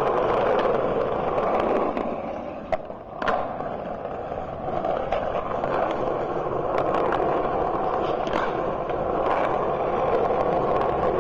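Skateboard wheels rolling over rough street pavement: a steady gritty rumble with scattered sharp clicks, briefly dropping off about three seconds in.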